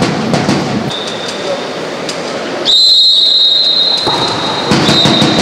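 Referee's whistle during a water polo match: a steady shrill tone, faint at first, then a loud blast lasting just over a second about three seconds in, and a short chirp near the end, over the noise of the pool hall.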